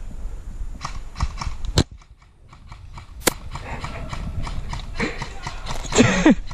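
Airsoft gun shots: scattered sharp pops with a quick string of faint clicks about two seconds in, over rustling gear and movement.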